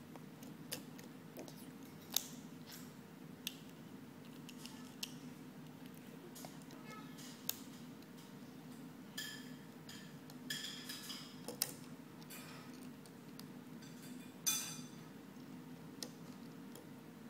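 Plastic Lego bricks clicking and snapping together as they are handled and pressed into place, a dozen or so scattered clicks with a few short rattling clusters, over a steady low hum.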